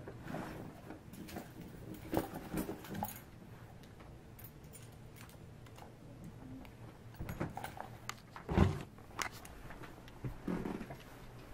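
Keys and small items jangling and clicking as they are handled and packed into a handbag, with a louder knock a little past two-thirds of the way through and handling bumps near the end.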